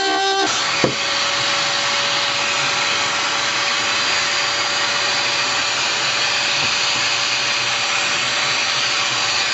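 Table-mounted router running steadily with a thin constant whine as a board is fed across its bit, cutting slots for drawer bottoms. A single knock just under a second in.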